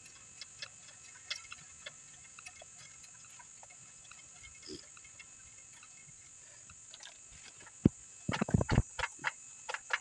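Faint, irregular metallic clicks from a bicycle's rear axle nut and chain adjuster being worked loose by hand. A cluster of louder clicks and rattles comes near the end.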